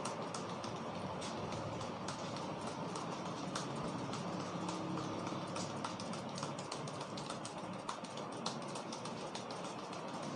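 Hands working over a head in an intense massage: steady rubbing and rustling with many quick, irregular taps and pats.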